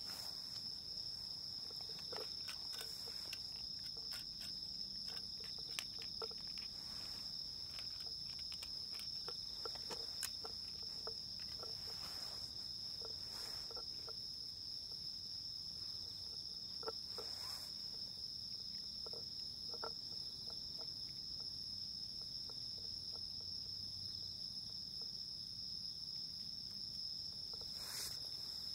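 Steady high-pitched trilling of crickets, with faint scattered clicks from cats eating.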